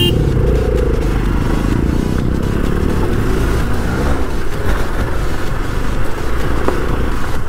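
Single-cylinder Hero XPulse 200 motorcycle engine running as the bike is ridden over rough off-road ground.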